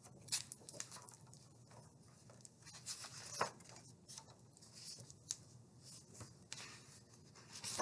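Faint rustling and light clicks of a hardcover picture book being handled and its pages turned, with a few sharper clicks scattered through.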